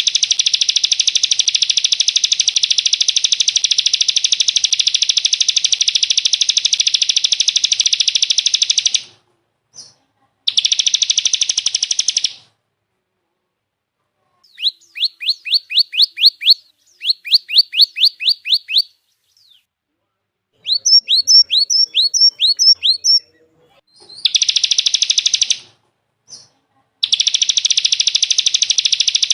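Recorded songbird song: long bursts of a rapid, buzzy trill that stop and restart, and in the middle three phrases of quick, high whistled notes, each sweeping downward, several a second.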